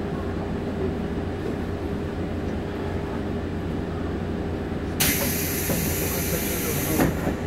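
A 189 series electric train running, heard from inside the passenger car: a steady rumble with a constant hum. About five seconds in, a sudden hiss starts and lasts about two seconds.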